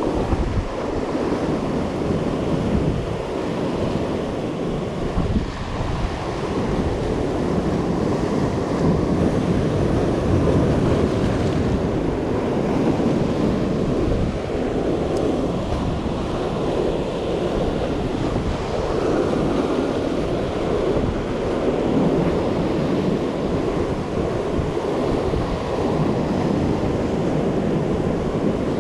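Ocean surf breaking and washing over a rocky reef in steady, surging waves, with wind rumbling on the microphone.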